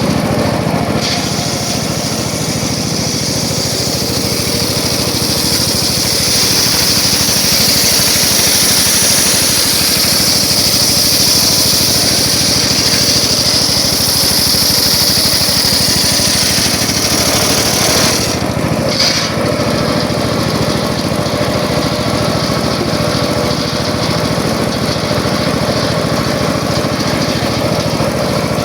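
Circular saw running steadily, a continuous engine-like drone with a high hiss over it; the hiss drops away about eighteen seconds in while the drone carries on.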